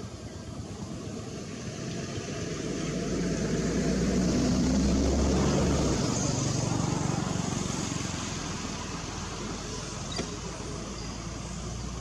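A motor vehicle passing by: its engine and tyre noise grow louder to a peak about halfway through, then fade away.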